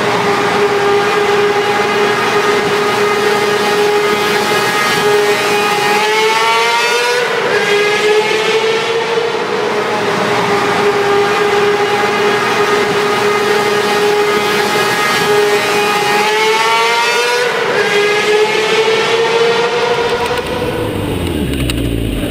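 Sport-bike engine running near the top of its revs, a high steady scream in a tunnel, its pitch swelling up and settling back twice.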